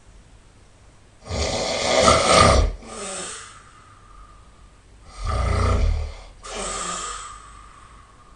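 A person snoring loudly: two rattling snores about four seconds apart, each followed by a shorter, softer breath.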